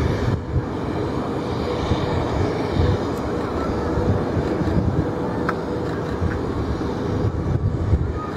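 Jet engines of an Airbus A320neo airliner running at taxi power: a steady engine noise with a low rumble and a constant low hum.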